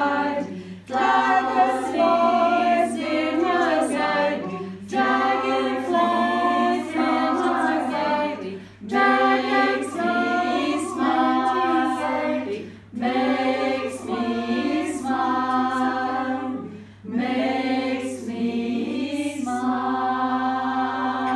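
A small group of voices singing an unaccompanied round, in overlapping phrases of about four seconds each.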